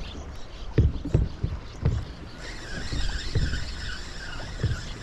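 Lake water slapping against the hull of a bass boat in irregular low knocks. About halfway in, a steady, slightly wavering whine starts.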